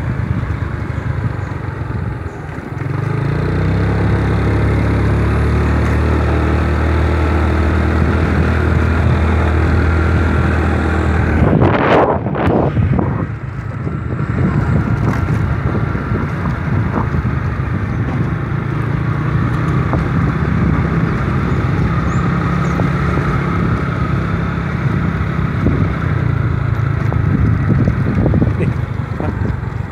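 Motorcycle engine running while riding, with wind noise on the microphone. The engine note picks up about three seconds in and holds steady, and there is a brief loud rush of noise near the middle.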